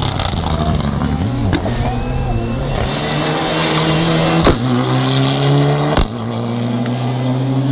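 Mitsubishi Lancer Evolution rally car's turbocharged four-cylinder engine driving past at speed, its note rising and falling with the throttle and gear changes. The sound breaks off suddenly twice and carries on at a steady high pitch.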